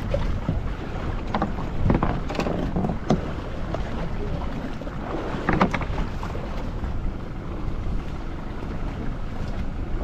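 Wind buffeting the microphone on a fishing boat at sea, over a steady low rumble of the boat and water. A few sharp knocks and short bursts of clatter come about two to three seconds in and again around five and a half seconds.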